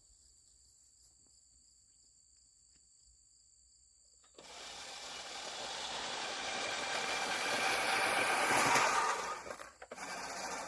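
Push reel lawnmower whirring as it is pushed, its spinning reel blades cutting grass. It starts suddenly about four seconds in, grows louder as it picks up speed, and drops off near the end. Before it starts there is only a faint steady insect drone.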